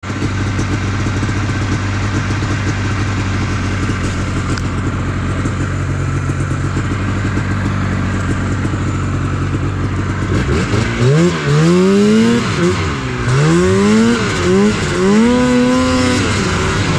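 Yamaha Phazer snowmobile engine idling steadily, then from about ten seconds in revving up and easing off several times, its pitch rising and falling as the sled pulls away across the snow.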